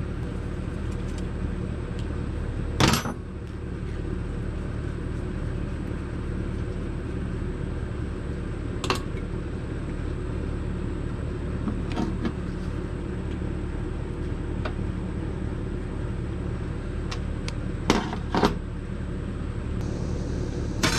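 A steady low mechanical hum runs throughout. Over it come a few sharp knocks and clinks of metal carburetor parts and tools on a steel workbench as a Ford 8N carburetor is taken apart: the loudest about three seconds in, and a quick pair near the end.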